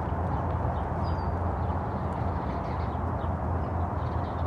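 Steady low background rumble with a few faint, short high chirps.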